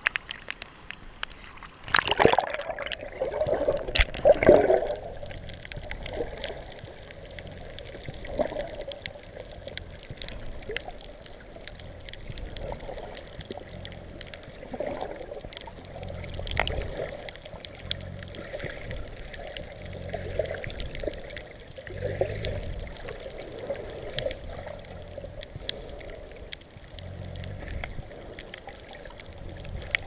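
Seawater sloshing around an action camera as it goes under at the surface: two loud splashes about two and four seconds in. Then muffled water movement heard from underwater, swelling and fading every two to three seconds.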